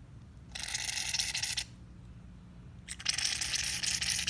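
Aerosol can of Barbasol shaving foam spraying foam into a bowl in two hissing squirts, the second one longer.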